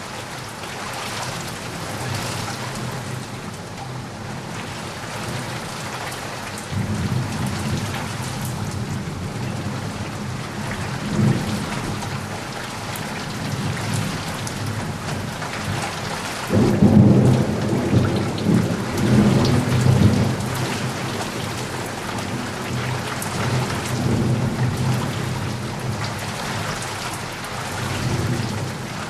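Steady heavy rain with thunder rumbling underneath; the low rolling rumble comes in about a quarter of the way through and is loudest just past the middle.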